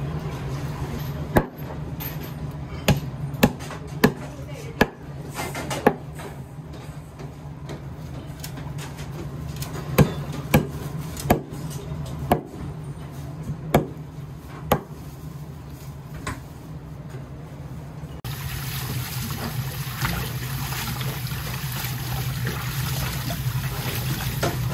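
Kitchen knife chopping eel backbones on a wooden cutting board: about a dozen sharp, irregular strikes. Near the end, water from a tap sprays steadily onto the chopped bones in a steel sink.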